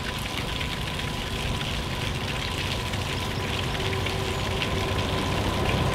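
Diesel freight locomotive hauling a loaded aggregate train, approaching from a distance: a low engine drone under a steady hiss that grows gradually louder, with a steady whine joining about four seconds in.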